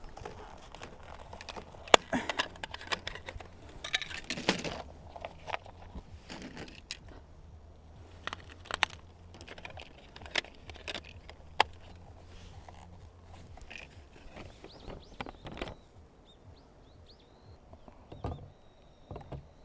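Scattered light clicks, knocks and rustling of small objects being handled, over a low steady hum that stops about two-thirds of the way through.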